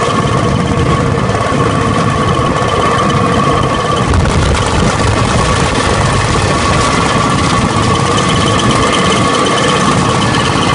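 Engine of a motorised rail trolley (zorra) running steadily as it travels along the track, a constant rumble with a steady high whine on top.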